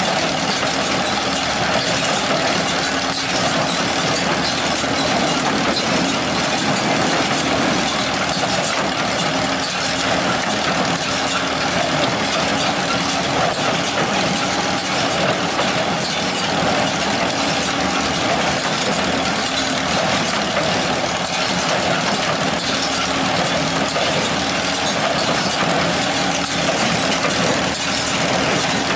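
Old John Deere 216 wire-tie hay baler running, driven by its four-cylinder Wisconsin engine, which runs steadily and loudly throughout.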